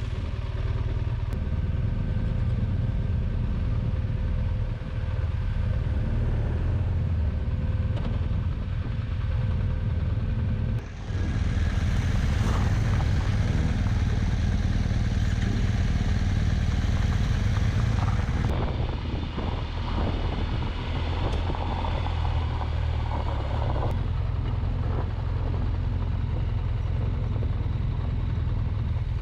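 BMW R1200GS adventure motorcycles riding on gravel: steady engine rumble mixed with wind and road noise. The sound changes abruptly about 11 seconds in and again about 18 seconds in.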